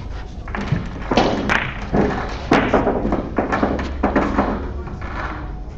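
A series of about six dull thumps with rustling, close to the microphone.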